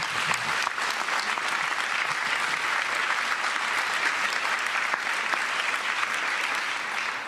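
Audience applauding in a large assembly, a dense, steady clapping that starts to thin out at the very end.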